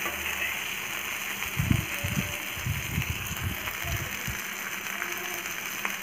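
Masala-coated fish pieces sizzling as they shallow-fry in oil on a flat tawa, a steady hiss. There are a few low thumps from about two seconds in.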